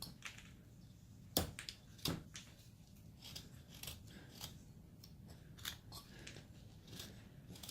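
Carving knife slicing small chips from a basswood figure: a run of short, irregular crisp cuts, with two sharper ones about a second and a half and two seconds in.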